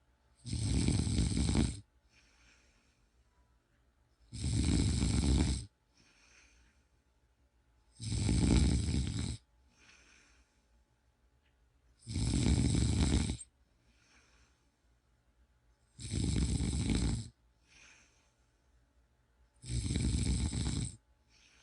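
A person snoring: six loud, rasping snores of about a second each, coming roughly every four seconds in a steady rhythm, with a much fainter sound between each pair.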